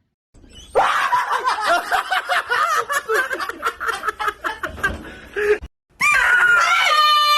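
A person laughing hard in rapid bursts for about five seconds. After a short break comes a long, steady high-pitched sound that carries into the end.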